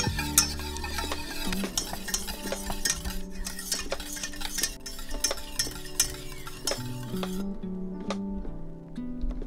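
A wire whisk stirring thick cornstarch lemon curd in a stainless steel saucepan, its wires scraping and ticking against the pan, over light guitar music. The whisking stops about seven seconds in, leaving the music with a few clicks.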